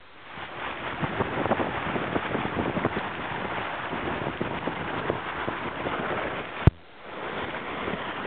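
Wind buffeting the microphone over the rush of water past the hull of a sailing yacht heeled and beating upwind in strong wind. A sharp click comes about two-thirds of the way through, and the sound drops away briefly after it.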